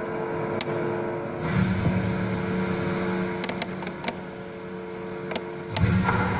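Live electronic drone music: steady held tones, with a deep low swell coming in about one and a half seconds in and again near the end, and scattered sharp clicks.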